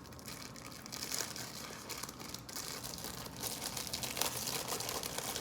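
Plastic snack wrapper of a stroopwafel packet crinkling continuously as it is handled and opened, a dense run of small crackles.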